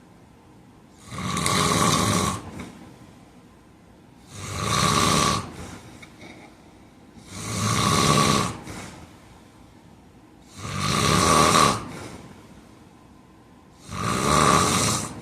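A man snoring loudly in his sleep: five snores in a steady rhythm, one every three to three and a half seconds, each lasting a little over a second.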